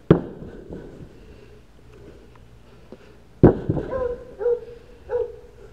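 Two heavy axe strikes splitting a log into quarters, about three and a half seconds apart, each a sharp crack. A few shorter wooden knocks follow the second strike.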